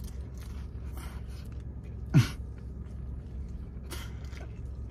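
Chewing a mouthful of lettuce-wrapped burger, with faint scattered mouth noises. A short vocal grunt with falling pitch comes about two seconds in, over a steady low hum.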